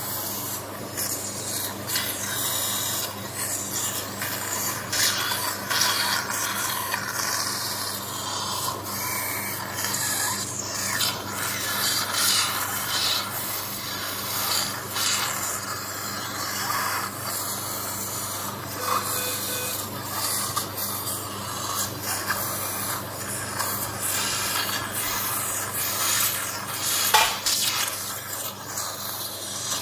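Continuous scratchy rubbing and rustling noise, with irregular scrapes and a steady low hum underneath; one sharper scrape near the end.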